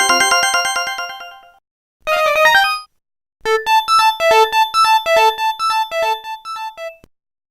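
Samsung SGH-T729 Blast ringtones playing one after another, each cut off by a short silence. First a fast run of electronic notes that fades away, then a short jingle about two seconds in, then from about three and a half seconds a bouncy melody of short notes at about two and a half a second.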